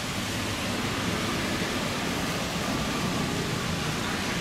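Jet engines of an Airbus A330 on final approach and flare: a steady, even rushing roar with a faint high whine.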